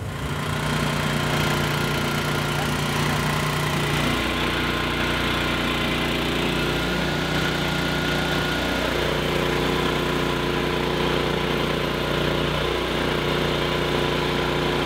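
EDCO Magna-Trap concrete floor grinder running steadily while grinding a concrete surface, its motor note shifting slightly about four seconds in.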